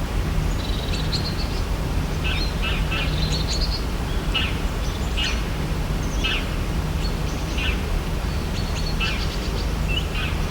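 Wild birds chirping: short, quick calls repeating every half second to a second or so, over a steady low rumble.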